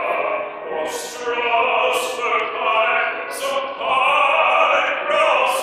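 Singing from a stage musical number, with instrumental accompaniment under the voices.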